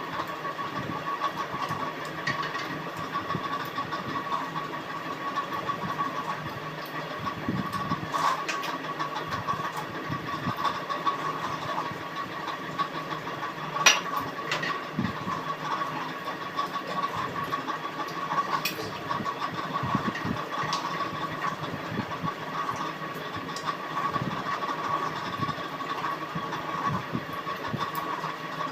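Close-up eating sounds: chewing and small irregular mouth and hand noises over a steady background hum, with one sharp click about 14 seconds in.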